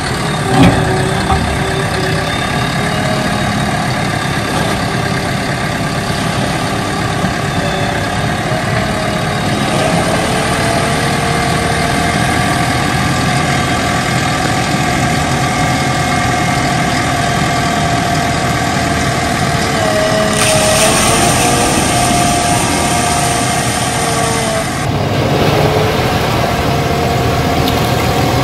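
JCB backhoe loader's diesel engine running steadily, its pitch dipping and rising a little as the loader arm raises the bucket. A sharp knock comes about half a second in, and a brighter hiss joins for about four seconds later on.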